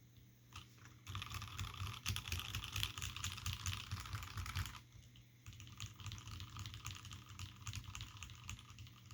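Typing on a mechanical keyboard with lubed, filmed Hirose Cherry MX Clear tactile switches, Cherry dye-sublimated keycaps, a forged carbon-fibre plate and a brass bottom. A fast run of keystrokes begins about a second in, breaks off briefly about halfway, then gives way to a quieter run of typing.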